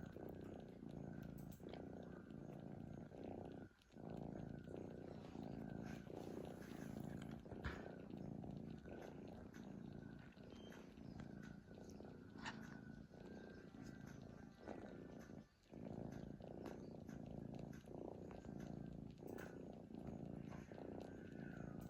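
A cat snoring, a faint steady low rumble that breaks off briefly about four seconds in and again about fifteen seconds in.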